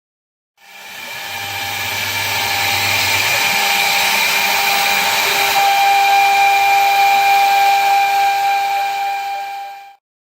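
CNC machine milling aluminium: a steady whine with several fixed tones over a hiss. It fades in over the first couple of seconds, grows a little louder about halfway through, and cuts off abruptly near the end.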